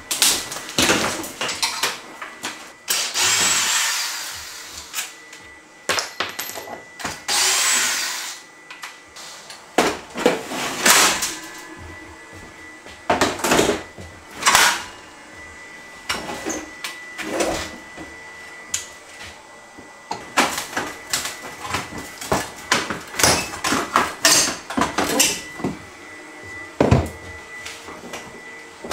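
Kitchen demolition: irregular knocks, bangs and clatter of wood and metal being pried and handled, with two bursts of a cordless drill running, about a second and a half each, roughly three and seven seconds in.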